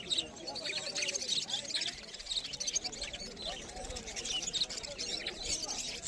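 A flock of budgerigars chattering: many short chirps and warbles overlapping continuously, with a faint murmur of voices underneath.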